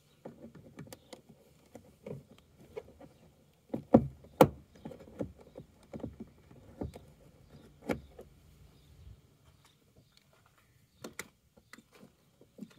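Irregular clicks and knocks of hands and tools working at a car's plastic wheel-arch trim, with two loud knocks about four seconds in and another near eight seconds, over a faint low rumble that stops about nine seconds in.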